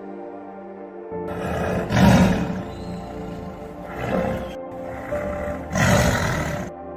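A large animal roaring: three loud roars about two seconds apart, over steady background music.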